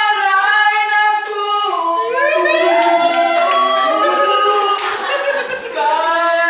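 Men singing a cappella with long held notes, the pitch sliding upward about two seconds in as several voices overlap. A few sharp claps sound around three and five seconds in.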